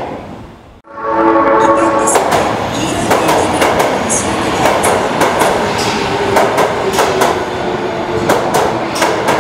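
Osaka Metro 22 series subway train entering the station and braking: wheels clattering over rail joints and points, with the traction motor whine slowly falling in pitch as it slows. A short pitched tone sounds about a second in.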